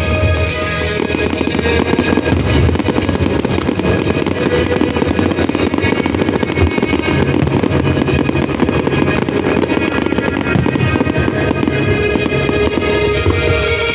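Fireworks going off in a dense run of crackling bursts over loud music.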